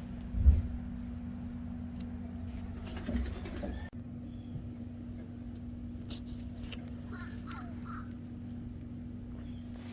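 Outdoor ambience with a steady low hum, a loud thump about half a second in and a softer knock around three seconds, and a few short bird calls near the end.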